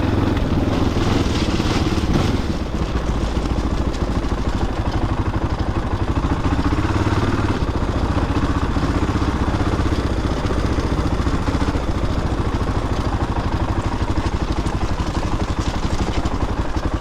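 Honda XR600R single-cylinder four-stroke dirt bike engine running at low speed. It pulls a little harder for the first two seconds, then settles into an even, quick chugging beat at low revs.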